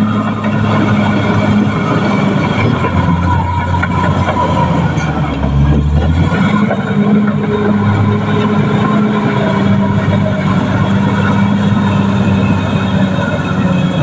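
Caterpillar D6R XL crawler bulldozer's diesel engine running hard under load as it pushes earth, with the clatter of its steel tracks. The engine note dips briefly about six seconds in, then comes back up.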